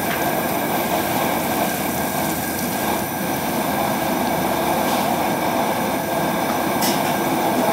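Gas burner under a homebrew kettle running with a steady roar, the wort in the kettle at a rolling boil.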